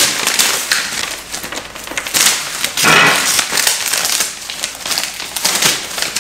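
Paper packing material being pulled out of a box, rustled and crumpled, in irregular crackling handfuls with a couple of louder surges about two and three seconds in.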